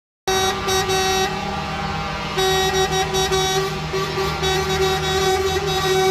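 Truck air horns sounding long, held blasts together over a low traffic rumble, loudest for the first second and again from about two and a half seconds in.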